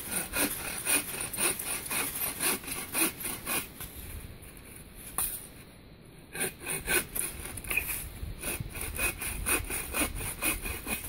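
Boreal 21 folding bucksaw cutting through a fallen poplar branch with quick, even back-and-forth strokes. The sawing stops for about two seconds midway, then starts again.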